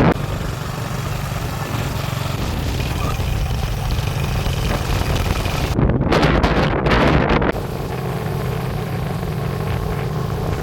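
Small engine running steadily, with gusts of wind buffeting the microphone, loudest about six to seven and a half seconds in.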